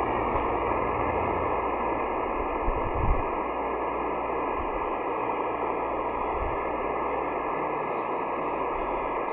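Steady static hiss from an Elecraft KX3 transceiver's receiver, tuned to an empty stretch of the 12-meter band between contacts. There is one soft low bump about three seconds in.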